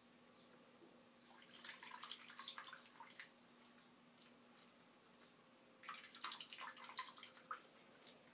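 Gosling's feet paddling in shallow bathtub water, making faint, quick small splashes and drips in two flurries, about a second in and again about six seconds in. A faint steady hum runs underneath.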